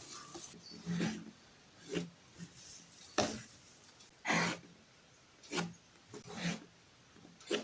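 A drawing tool scratching across paper in separate strokes, about one a second, with a longer stroke about four seconds in.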